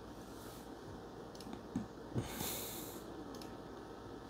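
Quiet room with two soft knocks, then a short, hissy sniff or breath through the nose a little past halfway.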